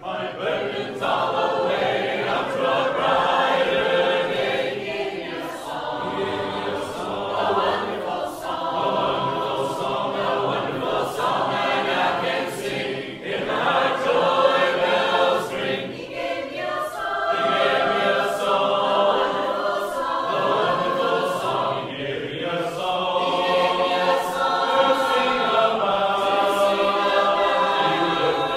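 A hymn sung a cappella by a group of voices in harmony, phrase after phrase with brief breaths between.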